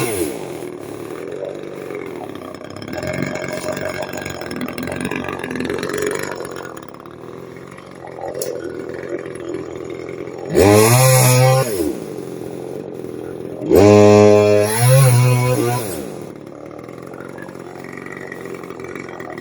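Chainsaw engine idling, revved up hard twice, about ten seconds in and again about three seconds later, each rev rising in pitch and dropping back to idle. At the start the engine is falling back down from a rev.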